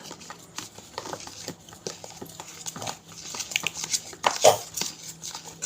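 Spoon stirring homemade slime in a container, with irregular clicks and scrapes against the sides. A louder short sharp sound comes about four and a half seconds in.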